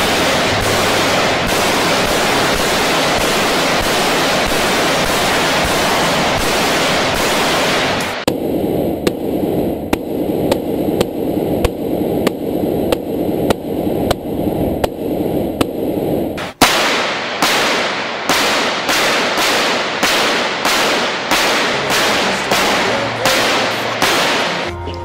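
Repeated rifle fire from an AK-style rifle, bullets striking an armored SUV's bullet-resistant windshield. For a stretch in the middle it is heard muffled from inside the car's cabin. Near the end it becomes sharp single shots about two a second.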